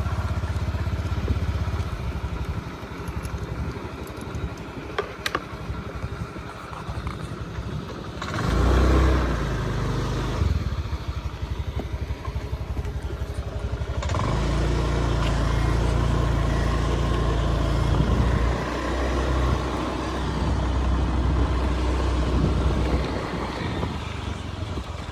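River water rushing steadily, with a heavy low rumble that swells and drops away several times.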